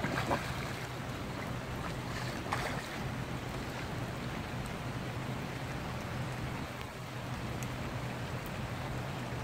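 Steady outdoor noise beside open water, a wind- or water-like hiss over a low steady hum, with two brief sharp sounds in the first three seconds.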